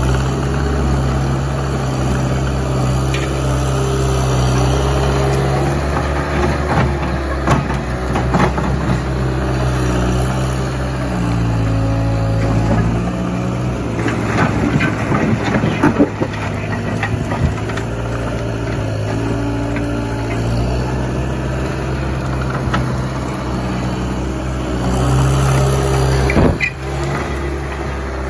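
Caterpillar 279C compact track loader's diesel engine running under working load, its pitch rising and falling with the throttle. Through the middle there are cracks, knocks and scrapes as the bucket breaks up and pushes slabs of old asphalt.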